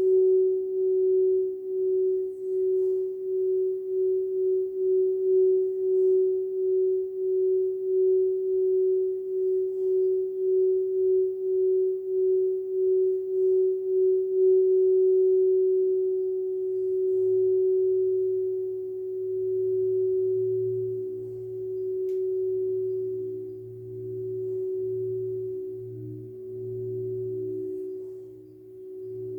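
Crystal singing bowl sounding one steady, pure tone that pulses about once a second. About halfway through, a lower, deeper bowl tone joins it, and the sound then swells and fades slowly.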